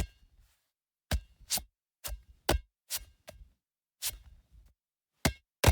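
A series of sharp, irregular taps, about a dozen in under six seconds, often in close pairs, with dead silence between them.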